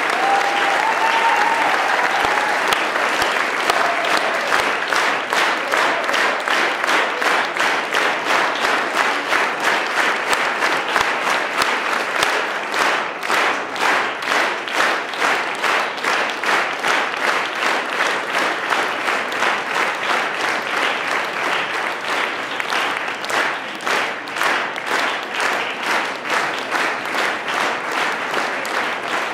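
Audience applauding. The dense spread of clapping turns after several seconds into rhythmic clapping in unison at about three claps a second, which eases off slightly near the end.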